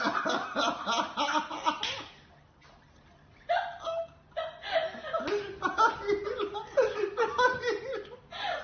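Human laughter that stops for about a second and a half, around two seconds in, then starts again.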